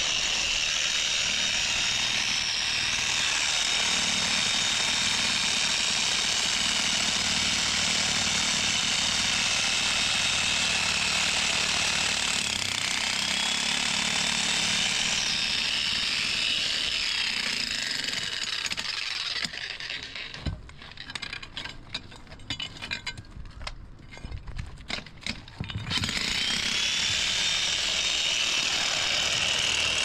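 A power tool at construction work runs with a dense, steady noise and a whine in it. It stops for about six seconds in the second half, leaving a few scattered knocks, then starts again.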